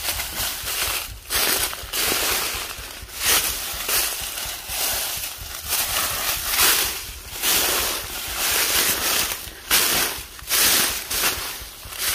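Footsteps crunching through a thick layer of dry, dead banana leaves, a rustling crackle with each step, roughly one step a second.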